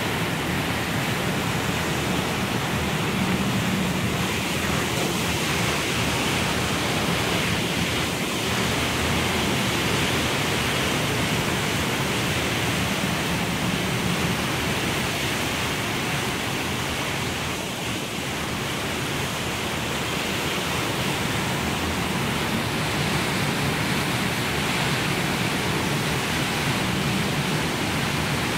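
Strong storm wind blowing hard and steadily, a continuous loud rushing noise with a fluttering low rumble from the wind buffeting the microphone.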